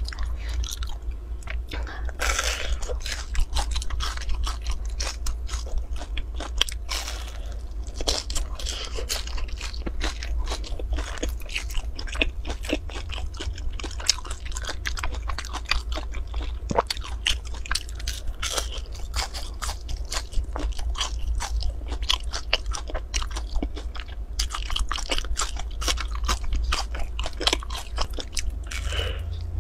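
Close-up crunching and chewing: a person biting into a crisp, crumb-topped round pastry, with many small crackles throughout over a steady low hum.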